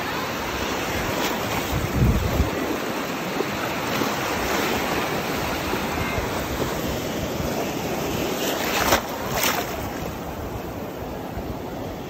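Shallow surf washing and small waves breaking around a wader, with wind buffeting the microphone in a low gust about two seconds in. Two sharp splashes come close together about nine seconds in.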